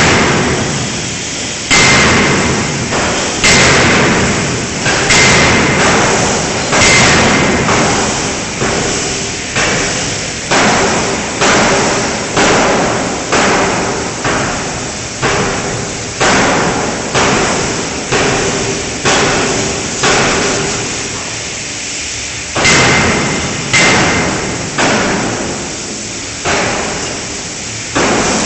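5-ton fully hydraulic closed-die forging hammer striking a connecting-rod forging in the die. Heavy blows about one to two seconds apart, the early ones followed by a high metallic ring. The blows come a little faster in the middle, stop for about two seconds, then resume.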